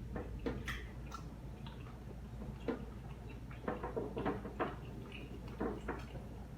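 Close-miked eating sounds: irregular wet mouth clicks and smacks of chewing, thickest about four seconds in.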